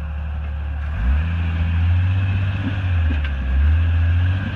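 Jeep Wrangler YJ's engine pulling under load as the Jeep crawls over rocks. It revs up about a second in, holds the higher revs unevenly, and eases back near the end.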